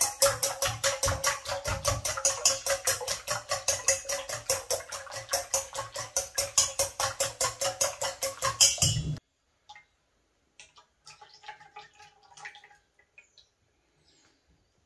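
Batter being beaten fast in an enamel steel bowl: quick, even strokes, about five a second, with the bowl ringing steadily underneath. The beating stops abruptly about nine seconds in, leaving only faint scattered clinks of the whisk against the bowl.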